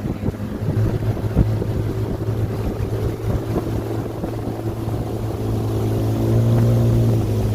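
Outboard motor of a river canoe running steadily at cruising speed, a constant low engine hum that grows a little louder near the end.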